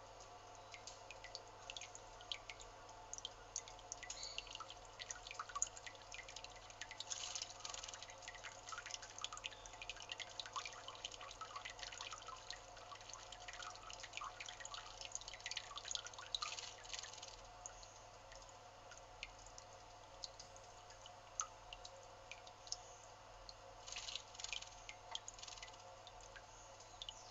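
Faint splashing and dripping of water as a male Narcissus flycatcher bathes in a stone birdbath, coming in spells of quick little splashes between quieter stretches, over a steady low hum.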